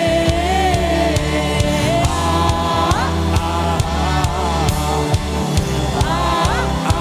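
Upbeat gospel worship music: singers over a band with a driving bass and steady drum beat.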